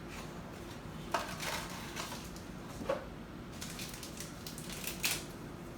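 A few light clicks and knocks of kitchen items being handled while tea is made, the sharpest about one, three and five seconds in, over a faint steady low hum.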